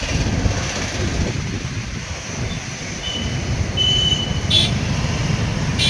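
Road traffic running by, with a steady low noise and a few short high-pitched horn beeps near the middle.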